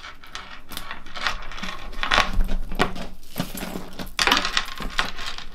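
Gold metal chain strap jingling and clinking as it is handled and attached to the bag, with repeated small metallic clicks throughout.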